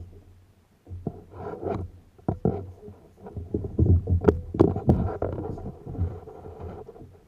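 Water splashing and sloshing around kayaks, with a run of irregular sharp knocks about four to five seconds in.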